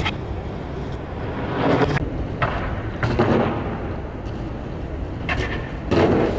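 Skateboard wheels rolling over pavement: a steady low rumble that swells a few times, with a sharp clack about two seconds in.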